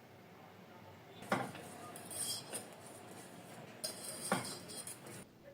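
Kitchen utensils knocking against dishes or a pot, with two sharp knocks, about a second in and about four seconds in, and brief rustling clatter in between.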